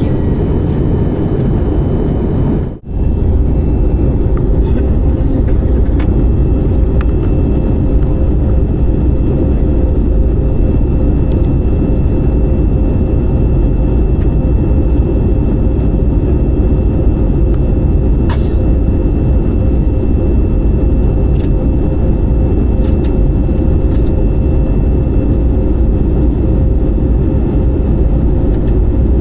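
Steady cabin noise of a jet airliner in flight, a dense low rumble of engines and airflow heard from inside the cabin, with a constant hum running through it. The sound cuts out briefly just under three seconds in, then resumes slightly heavier in the low end.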